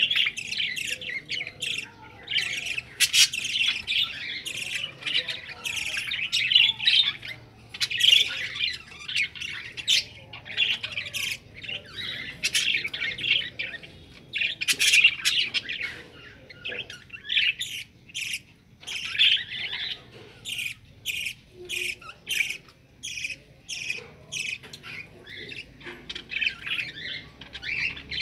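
Budgerigars chattering: a continuous run of rapid, short chirps and squawks.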